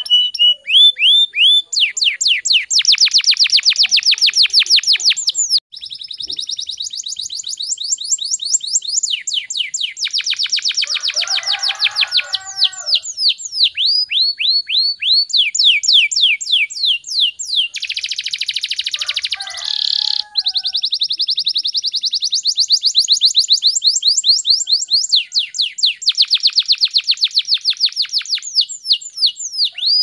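Domestic canary singing a continuous song of fast, tightly packed trills, each a rapid run of repeated downward-sliding notes, switching to a new trill every few seconds.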